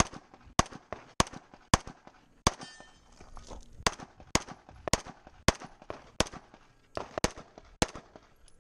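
Staccato P semi-automatic pistol firing a string of about a dozen shots, roughly half a second apart, with a pause of over a second near the three-second mark.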